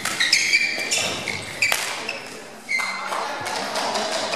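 Court shoes squeaking repeatedly on an indoor sports-hall floor as badminton players move, with one sharp racket-on-shuttlecock hit about a second and a half in. The sounds ring in a large hall.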